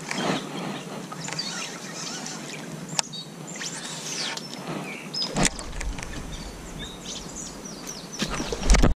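Small birds chirping and singing over a steady outdoor hiss, with a sharp click about three seconds in and a thump about halfway through. A louder rush comes just before the end, then the sound cuts off abruptly.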